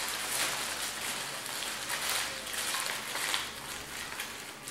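Aluminium foil crinkling and rustling in irregular bursts as a foil packet is wrapped and its ends twisted shut by hand.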